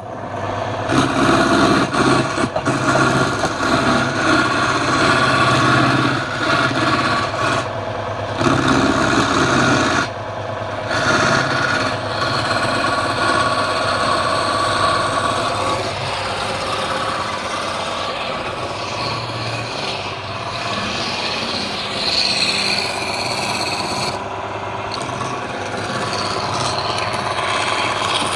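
Wood lathe running while a turning tool or abrasive works the spinning wood: a steady rasping scrape over the motor's hum. The scrape breaks off twice, briefly, in the first half.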